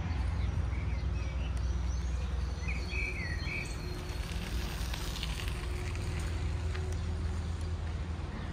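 Outdoor ambience: a steady low rumble under a few short bird chirps about three seconds in.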